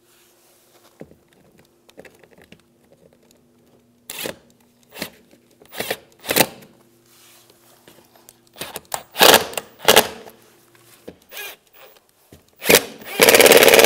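Compact cordless impact driver run in short bursts, driving screws into the plastic mounts of a car's lower bumper grille. The longest and loudest run comes near the end.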